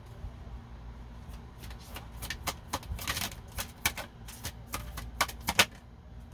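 A deck of tarot and oracle cards being shuffled and handled: a quick, irregular run of card clicks and snaps from about two seconds in, with a short rustle near the middle, ending shortly before the next card is read.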